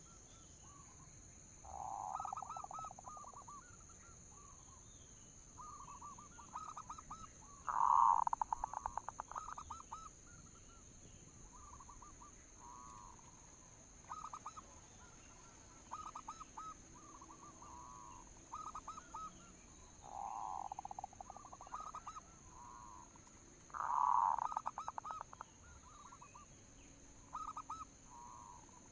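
Zebra dove (perkutut) song: repeated rippling phrases of rapid staccato coos, one after another, the loudest about a third of the way in and again near the end.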